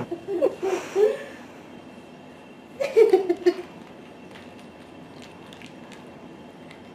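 Short bursts of human laughter, in the first second and again around three seconds in, then a quiet room with a few faint clicks.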